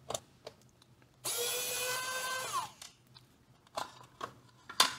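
Small cordless electric screwdriver running for about a second and a half as it backs out a case screw, its whine falling as it winds down. Sharp clicks and knocks of the plastic radio case being handled and opened come before and after, the loudest near the end.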